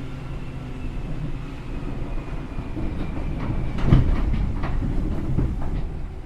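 Cabin running sound of a Seibu New 2000 series field-chopper electric train: steady wheel and motor rumble with a faint whine that sinks slightly in pitch. About halfway through comes a run of sharp wheel clacks over rail joints or points, loudest about four seconds in.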